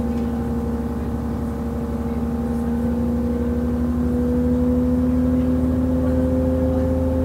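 DB class 628.4 diesel railcar heard on board, its MTU 12V183 TD13 twelve-cylinder diesel engine running under power. The engine note dips slightly, then rises steadily in pitch and grows louder from about four seconds in as the engine speeds up.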